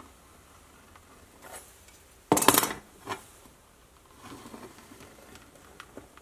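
A steel combination square and pencil handled on a plywood board: one loud metal-on-wood scrape about two and a half seconds in, lasting about half a second, with a smaller knock just after, then softer pencil scratching and a light tick near the end.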